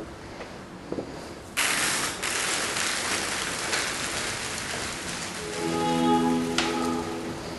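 A steady hiss that starts suddenly about one and a half seconds in, with music of long held chords coming in over it near the end.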